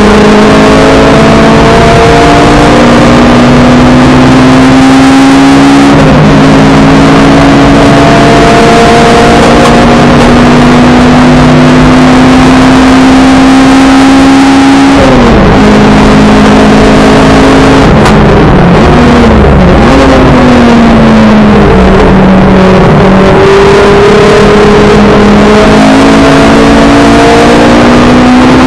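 Honda race car's engine heard from inside its cabin under hard acceleration, the pitch climbing slowly through the first half. About halfway through it falls as the driver lifts and downshifts, with a few quick rises and dips, then climbs again near the end. Very loud on the in-car microphone.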